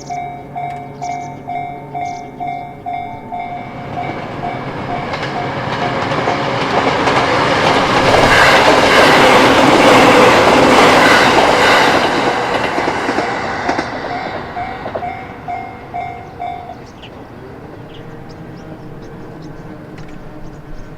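Japanese railway level-crossing warning bell clanging about twice a second while a JR Narita Line train passes over the crossing. The train's wheels clatter on the rails, swelling to their loudest about eight to twelve seconds in and fading away. The bell stops a few seconds before the end.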